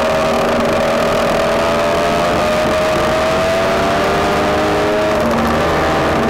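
Lambretta scooter's two-stroke single-cylinder engine running under way, its pitch climbing slowly as it accelerates, then dropping about five seconds in.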